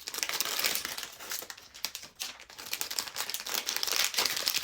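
Plastic blind-box bag crinkling and rustling as it is handled and opened to get at the figure inside.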